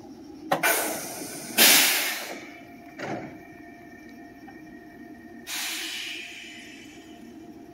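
Pneumatic sliding doors of a Meitetsu commuter train opening: a click, then two loud bursts of compressed-air hiss from the door engines and a knock as the doors reach their stops. About five and a half seconds in, another air hiss follows over the train's steady low hum.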